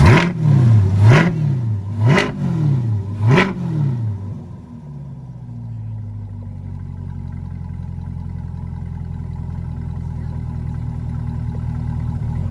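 Car engine revved in four quick blips, each rising and falling in pitch, over about the first four seconds, then settling into a steady idle.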